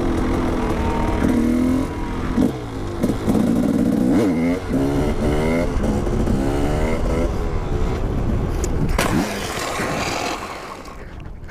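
Husqvarna supermoto motorcycle engine revving hard, its pitch rising and falling over and over, with wind rumble on the helmet camera. A sharp crack comes about nine seconds in, and the engine note falls away near the end as the bike tips over.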